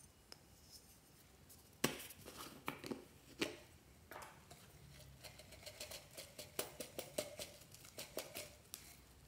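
A plastic jar's cap is pried off with one sharp click and a few knocks. Then comes a quick run of light taps and rustles as the jar is tipped and small foam roses are shaken out into a hand.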